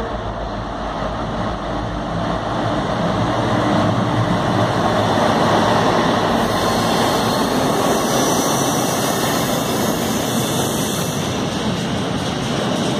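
Freight train passing through the station at speed: the locomotive approaches and a long line of box wagons rumbles and rushes past on the rails. The noise grows over the first few seconds, then stays loud and steady.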